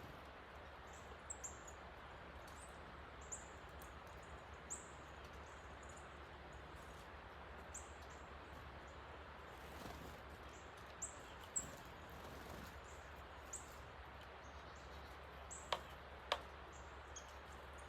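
Rain-swollen creek rushing steadily, with short high bird chirps scattered throughout and two sharp clicks late on.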